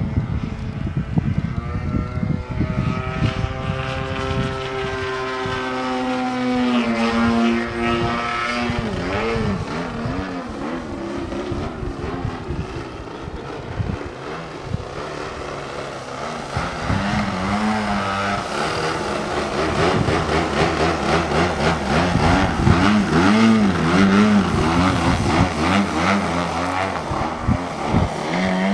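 Gasoline model-aircraft engine, the O.S. 33 cc two-stroke of an aerobatic RC plane, running in flight. Its pitch slides down in a long glide about seven seconds in, then wavers up and down with throttle changes and passes, and it grows louder near the end as the plane passes low.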